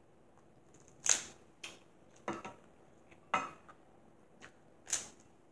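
Cooked Dungeness crab shell being cracked and snapped apart by hand: about five short, sharp cracks, the loudest about a second in and near the end.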